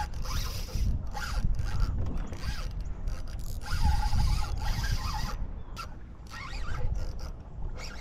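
Spinning fishing reel working while a hooked fish is fought: irregular spells of mechanical buzzing and whirring from the reel and line, over a low rumble.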